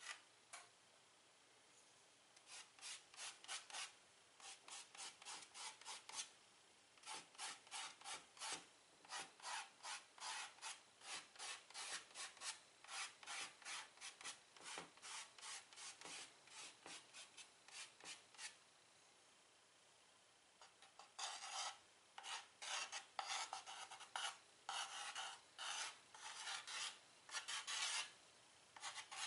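White chalk scratching on a chalkboard in a quick series of short strokes, about two or three a second, as small marks are drawn. The strokes stop for a couple of seconds about two-thirds of the way through, then start again.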